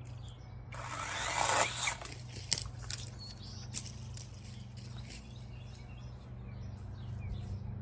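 A dead tree branch being cut and pulled down: leaves and twigs rustle for about a second, then comes a sharp snap a second later and a smaller click after that. A steady low hum runs underneath.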